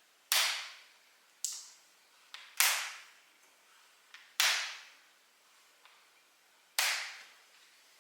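Trigger spray bottle spraying in short hissing squirts: five strong sprays a second or two apart, each fading over about half a second, with a couple of lighter squirts between them.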